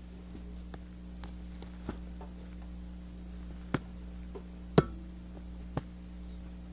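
A few sharp clicks and taps of plastic bottles knocking together as one is stood upright on top of another and held in balance, the loudest just under five seconds in, over a steady low hum.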